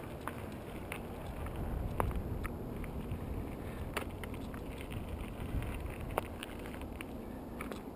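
Mountain bike rolling on asphalt: a steady low rumble of tyres and wind on the microphone, with scattered small clicks and rattles from the bike.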